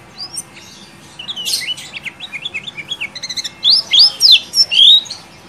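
Kecial kuning (a yellow white-eye) singing its 'ciak ciak jos' song: a run of quick, high, down-slurred chirps and a fast trill, then four loud arched whistles about three and a half to five seconds in. It is the song that keepers play as a tutor (masteran) recording to draw other white-eyes into song.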